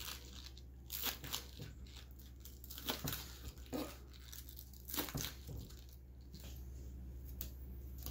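Chef's knife slicing through scallions on a wooden cutting board: crisp crunching cuts, each ending in a light tap on the board, about one a second.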